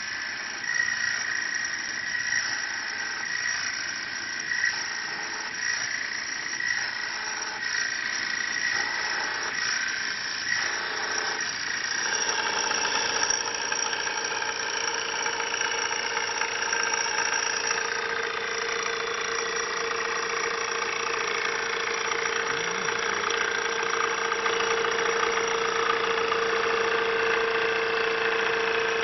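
Mini CNC wood lathe running, its cutting tool shaving a spinning wooden blank into a cup shape. The machine noise is steady, with a high whine at first. About 12 seconds in, a lower steady hum comes in and the sound grows slightly louder.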